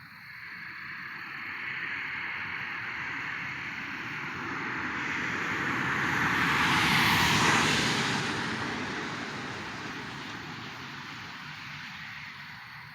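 A car passing on the road: tyre and engine noise that swells over several seconds, is loudest about seven seconds in, then fades away.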